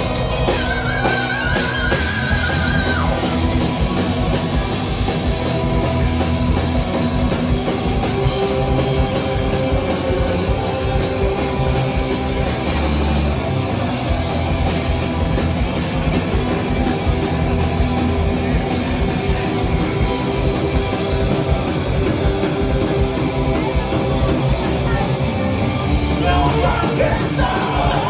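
Heavy metal band playing live: distorted electric guitars, bass and a fast, steady drum beat, loud and dense throughout, with a singer's voice coming in near the end.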